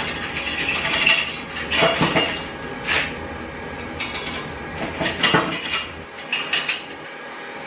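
Hand tools clinking and knocking on metal while the exhaust manifold bolts come off a 350 small-block Chevy Vortec engine: irregular sharp metallic clinks, some ringing briefly.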